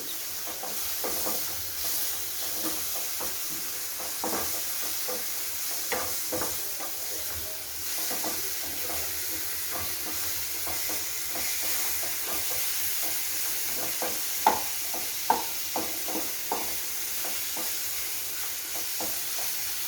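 Coarse ground dal paste shallow-frying in oil in a pan with a steady high sizzle, being stirred and scraped, with repeated short scrapes and two sharp knocks against the pan a little past the middle.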